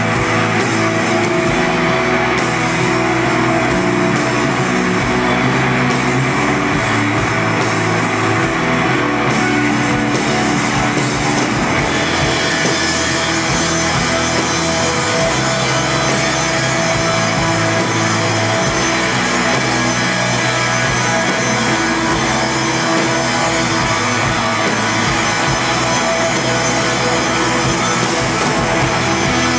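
Live rock band playing loudly: electric guitars over a drum kit. Cymbals crash heavily for the first twelve seconds or so and again near the end.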